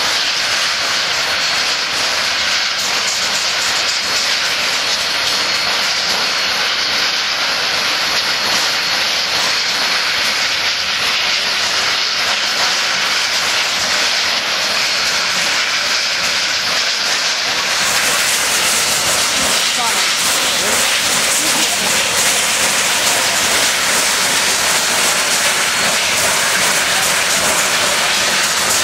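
Union Pacific 844, a 4-8-4 steam locomotive standing still, hissing steam steadily and loudly; the hiss grows brighter and a little louder about two-thirds of the way through.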